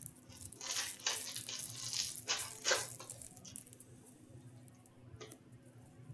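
Foil hockey card pack being torn open and its cards pulled out: a run of crinkling, rustling bursts over the first three seconds, then quieter handling and a single sharp click a little after five seconds.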